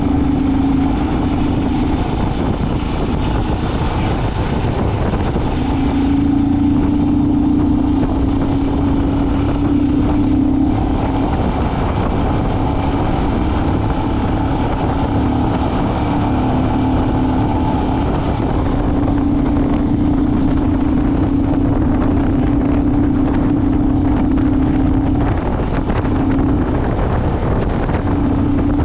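A vehicle driving along, with a steady engine and road rumble and a droning hum that fades out and returns several times.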